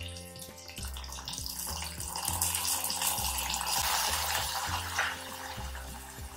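Hot ghee with fried cashews and raisins poured from a ladle into a pot of simmering vermicelli milk, sizzling with a hiss that swells through the middle and eases near the end. Background music with a steady bass beat plays throughout.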